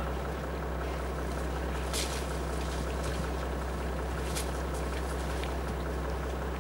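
Steady low hum of an idling engine, unchanging throughout. Over it come a couple of brief wet splashes as elephant calves wallow in the mud, about two seconds in and again past the middle.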